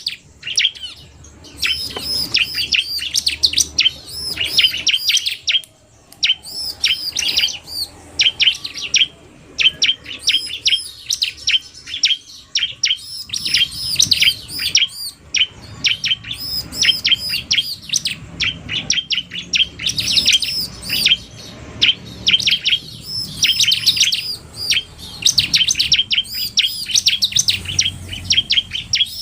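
Bar-winged prinias (ciblek) calling: a fast, high-pitched chattering of repeated chirps in bursts with short pauses. It is a mix of a male's agitated challenge song (narung) and a female's rapid calls, used to provoke a caged bird.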